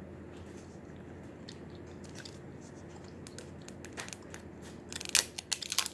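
Plastic toy packaging being worked open by hand: a few scattered crackles at first, then rapid loud crinkling and tearing near the end.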